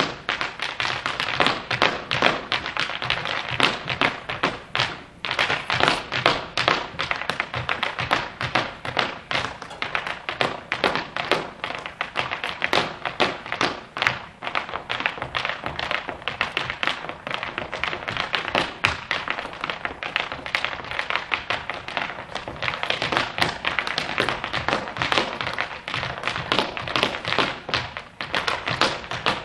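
Irish dance hard shoes beating fast, rhythmic footwork on a stage floor, several dancers striking together, with a few brief lulls.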